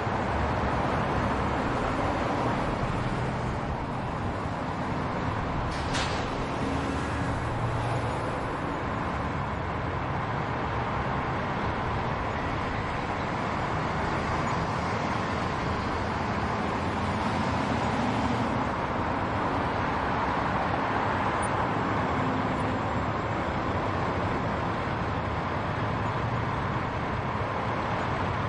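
Steady road traffic: cars and buses passing in a continuous wash of engine and tyre noise, with one brief sharp click about six seconds in.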